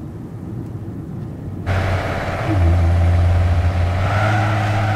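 Muffled, quiet car-cabin hum. About a second and a half in it gives way suddenly to a loud, steady car engine drone and tyre and road noise of a car driving at speed on a highway.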